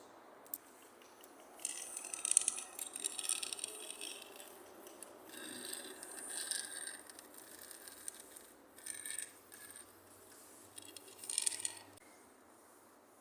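Loose hard materials rattled and scraped by hand against the building's hard surfaces, used as improvised instruments. The rattling comes in uneven bursts of a second or two with short gaps between them.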